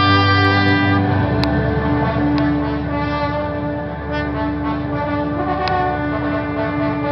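Live ensemble music with sustained chords. A trumpet holds a note that ends about a second in, and the other instruments keep holding their notes after it stops.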